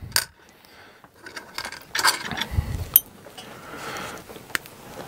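Handling noise from a folding pocket knife and a cut-off rubber timing belt: scattered small clicks and rustling, a soft thump about two and a half seconds in and a sharp click near three seconds.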